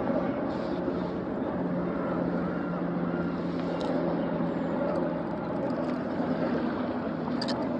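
An engine running steadily: a low, even drone with no change in pitch.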